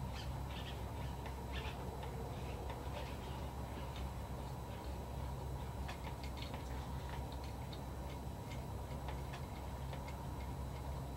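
Steady low hum with many faint, irregular ticks and clicks from a small brush and locking hemostats being handled while clear epoxy is brushed onto a popper fishing lure.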